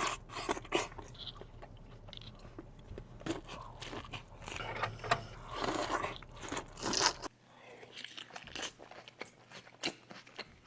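Close-miked eating of a seafood boil: repeated crunchy bites and wet chewing with sharp clicks. A low background hum drops out about seven seconds in.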